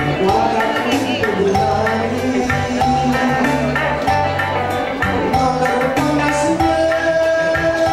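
A man singing a slow song through a microphone and PA over backing music with a repeating bass line and light percussion.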